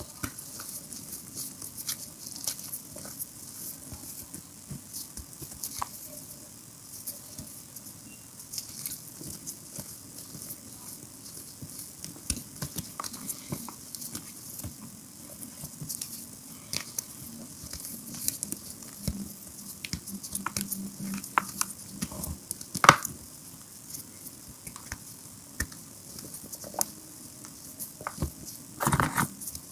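Reformed gym chalk chunks crushed and crumbled between the fingers over a heap of chalk powder, giving a dense, irregular dry crunching and crackling. There is one sharp, loud snap about three-quarters of the way through and a heavier burst of crunching near the end.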